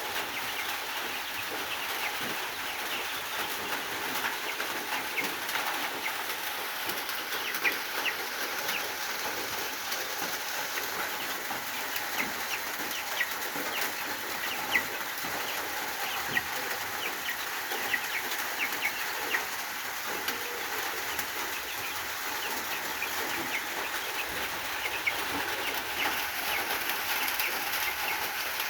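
Chickens calling with many short, irregular high chirps over a steady background hiss.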